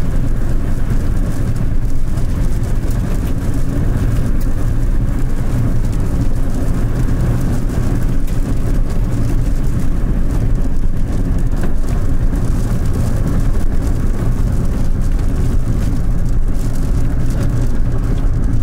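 Steady low drone of a vehicle on the move, engine and road noise heard from inside the cabin.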